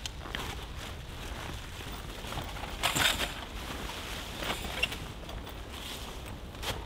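Dry fallen leaves crunching and heavy canvas rustling as a canvas bell tent is pegged down and handled, in irregular crackles with a louder burst about three seconds in, over a low steady rumble.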